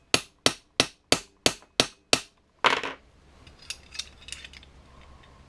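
A quick, even run of sharp metal taps, about three a second, then one louder clattering hit about two and a half seconds in, followed by faint small clinks of metal parts.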